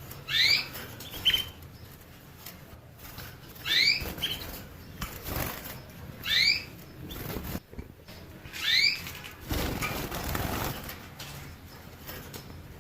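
A canary gives four short, rising call notes, roughly every two and a half seconds, some followed by a brief second chirp. A longer rustling noise comes in the last third.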